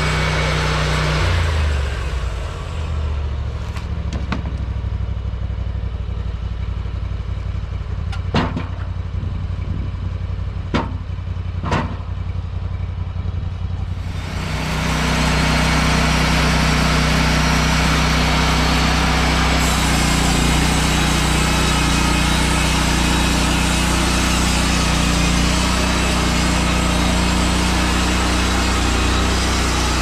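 Portable bandsaw sawmill's petrol engine drops to idle about a second and a half in, with a few sharp knocks over the idle. About fourteen seconds in it speeds up again and the band blade cuts along the log.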